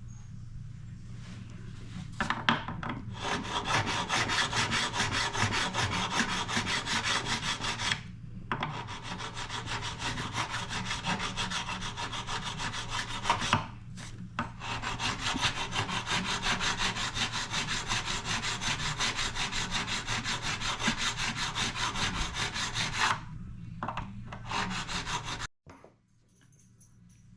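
A hand tool stroked rapidly back and forth on wood, making a rasping sound in three long runs with short pauses between them, then a few more strokes before it cuts off near the end.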